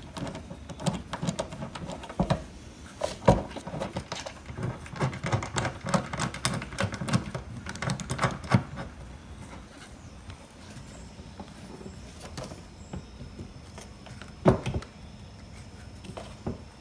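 Hands working on winch hardware: a quick run of small clicks, taps and rattles of parts and tools being handled, busy at first and thinning out after about nine seconds, with one sharper knock near the end.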